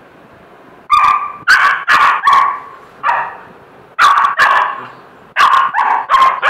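Black-and-tan puppy barking, high and sharp, in quick runs of two to four barks that start about a second in.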